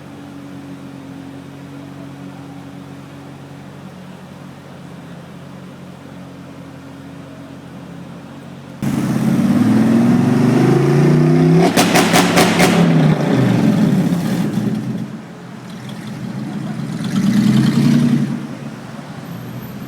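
Performance car engine idling, then revved loud about nine seconds in, with the pitch climbing and falling and a quick run of sharp pops midway. It drops back, is revved again a few seconds later, and settles to idle near the end.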